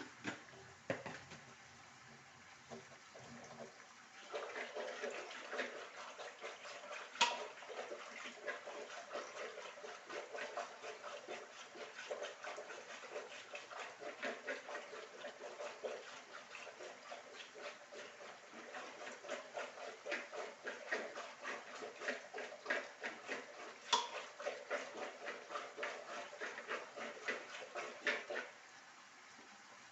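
Metal spoon stirring and scraping in a cooking pot, a dense run of quick scrapes and taps starting about four seconds in and stopping near the end, with two sharper clinks against the pot.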